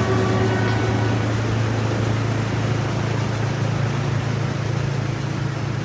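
Tour tram running steadily, a constant low hum over rolling noise.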